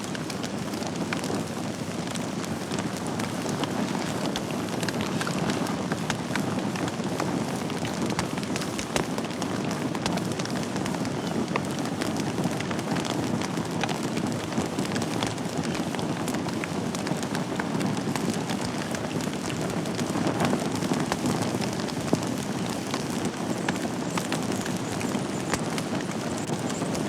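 Wood fire burning in a fireplace: a steady hiss and rustle of flames with frequent sharp crackles and pops from the burning logs.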